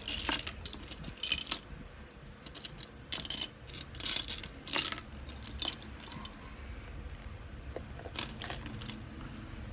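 Small plastic building bricks clicking and clattering against each other and a wooden tabletop as hands sift through a loose pile of pieces, in scattered clusters of sharp clicks.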